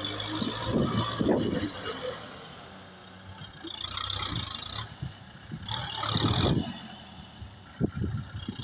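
Kubota tractor's diesel engine running steadily, with several louder, irregular bursts of clatter as it works the soil.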